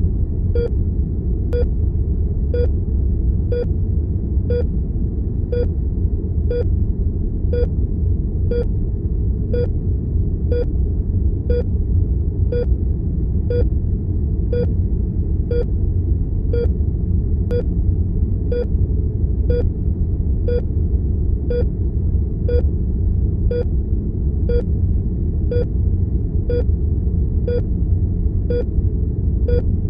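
Heart monitor beeping once a second, a short pitched beep, over a steady low rumble of room tone and equipment hum.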